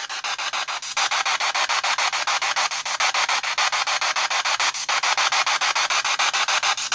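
P-SB7 Spirit Box sweeping the FM band through an external speaker: radio static chopped into rapid, even pulses as it steps from station to station, with two short breaks about a second and five seconds in.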